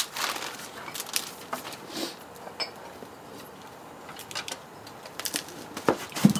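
Tableware clicking and tapping as people eat: light, scattered knocks of utensils on plates and dishes.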